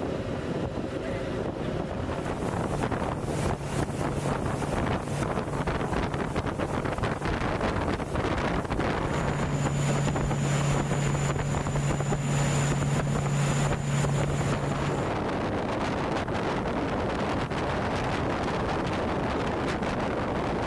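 Patrol boat running at speed: wind buffeting the microphone over the rush of water and the engine drone. A steady low engine hum comes in twice, the second time for several seconds in the middle, alongside a faint high whine.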